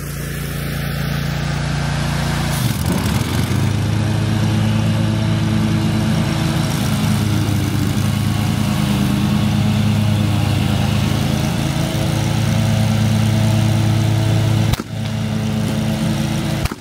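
Zero-turn riding lawn mower engine running steadily under load, its note shifting about three seconds in. A single sharp snap near the end is followed by a brief drop in level.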